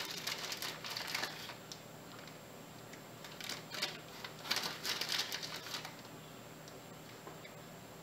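Chocolate chips clicking and rattling as a hand grabs them up by the handful, in three short bursts of quick clicks, the loudest about halfway through.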